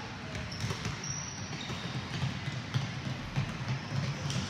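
Basketballs bouncing on a hardwood gym floor: irregular dribbling thuds echoing in a large hall.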